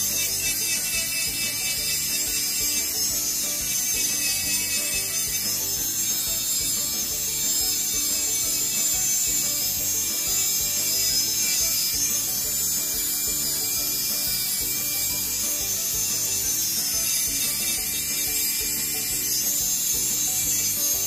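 Electric nail drill with a titanium bit sanding gel polish off a natural nail: a steady high hiss of the bit grinding across the nail surface, taking off the colour coat without reaching the base.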